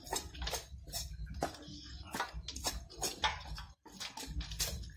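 Hands scraping and rubbing a slippery tra catfish in a steel basin of water while it is cleaned, with irregular light knocks and scrapes against the metal.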